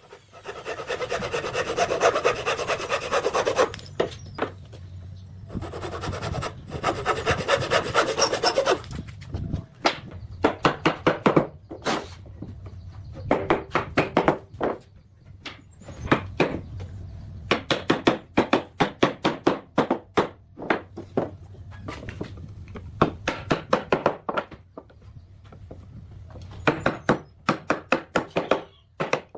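A hand tool worked back and forth on wood. Two runs of rapid rasping strokes come in the first nine seconds, then slower, regular separate strokes about three a second, with short pauses between sets.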